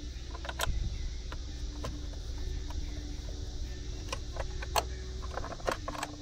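Scattered light clicks and knocks of the trolling motor and its aluminium bow-mount bracket being handled, over a steady low hum.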